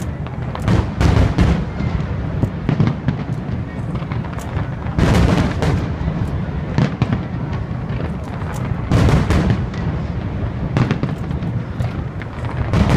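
Aerial fireworks shells bursting in a dense, overlapping barrage of booms over a continuous low rumble, with heavier clusters of bursts about one, five, nine and eleven seconds in.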